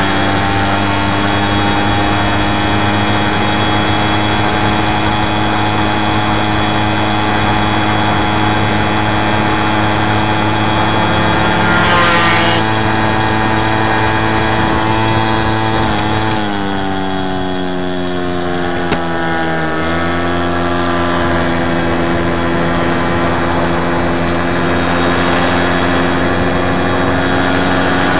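Small two-stroke engine of a VéloSolex moped running steadily at speed. Its pitch sags for a few seconds past the midpoint, then picks back up. A brief rushing noise passes about twelve seconds in.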